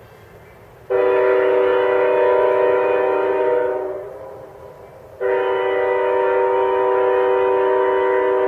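Locomotive multi-chime air horn sounding two long blasts from an approaching train: a steady chord held about three seconds and fading away, then after a short gap a second blast that is still sounding at the end.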